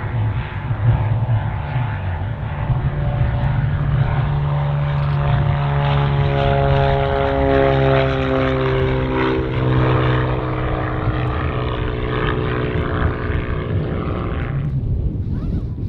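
Cirrus SR20's six-cylinder piston engine and propeller at full takeoff power as the plane rolls down the runway, lifts off and climbs away. The engine's pitch drops as it passes, and the higher part of the sound falls away sharply near the end.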